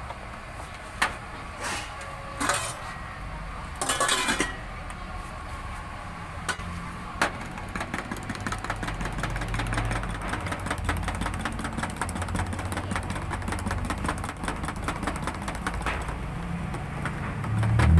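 A metal spoon knocking and scraping inside a tin can while stirring cocoa: a few separate knocks at first, then quick, even stirring strokes from about eight seconds in. A low engine rumble runs underneath and grows louder near the end.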